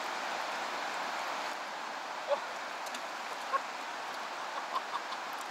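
Shallow river current running steadily, with a few faint short plips from about two seconds in.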